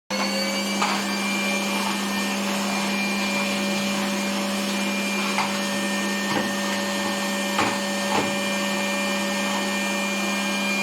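Vacuum cleaner running steadily with a whining hum, and a few brief knocks over it.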